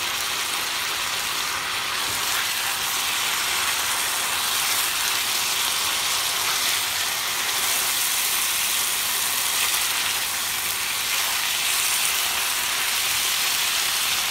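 Potato, carrot and green-pepper pieces sizzling steadily in a frying pan of oil and a little water.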